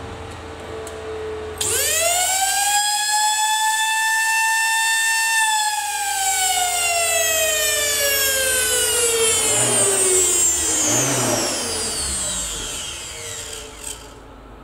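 Vacuum cleaner motor switched on, whining up quickly to a high steady pitch, then switched off about five seconds in and winding down in a long falling whine. Its wires have been swapped to try to reverse it, but it still spins the same way.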